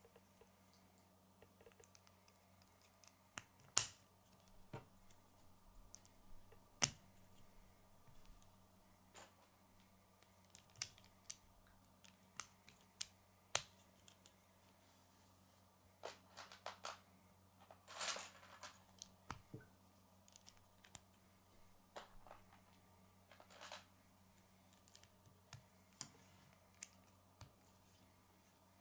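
Plastic K'nex pieces clicking and snapping together as rods are pushed into connectors and gears, in irregular sharp clicks with a few louder snaps and a short rattle of handled parts a little past the middle.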